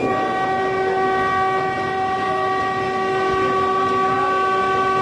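Duro Dakovic narrow-gauge diesel railcar's horn sounding one long, steady blast as the railcar nears a tunnel, over the railcar's running noise heard from the cab.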